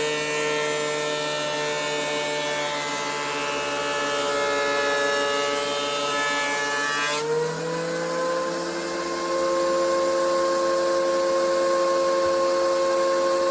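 DeWalt DW735 thickness planer planing an ash board, its motor and cutterhead running steadily under load. About seven seconds in, the board clears the knives: the cutting noise drops away and the motor runs on free at a slightly higher pitch.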